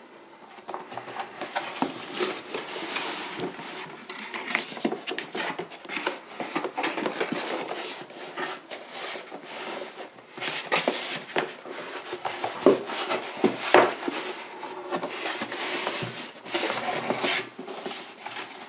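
Cardboard packaging being handled and opened by hand: continuous scraping and rustling of cardboard, with many sharp knocks, the two loudest about two-thirds of the way in.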